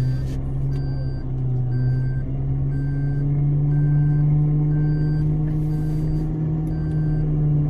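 Off-road vehicle's engine running steadily at raised revs while reversing up a slope, its pitch rising a little midway and easing off later. A short electronic beep repeats about once a second. The vehicle is not making it up in reverse.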